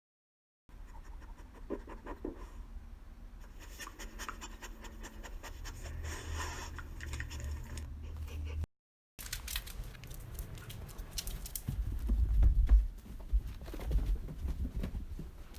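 A corgi panting, with scratching and rustling. The sound cuts out briefly about nine seconds in, and the second part holds louder dull thumps about twelve seconds in.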